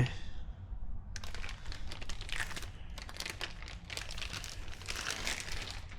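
Irregular crinkling and rustling of packaging as the tools are handled, starting about a second in.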